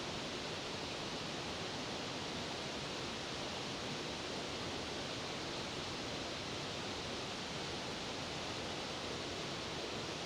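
Steady rushing of a waterfall: an even hiss of falling water that does not change.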